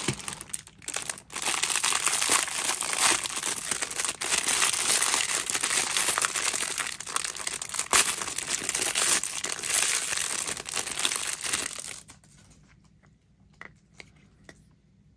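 Thin clear plastic packaging bag crinkling as a toy figure is unwrapped, stopping abruptly about twelve seconds in. A few faint plastic clicks follow as the figure is handled on its plastic base.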